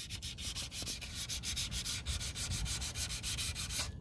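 Rapid, even back-and-forth scrubbing, about nine strokes a second, cleaning up a boat propeller.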